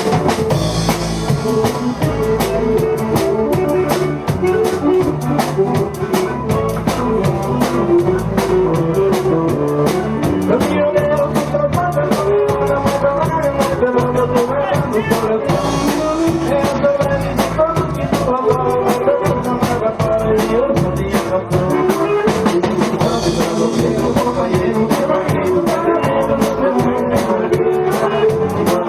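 A band playing a xote, a Brazilian dance rhythm, with a steady drum beat under a melody line.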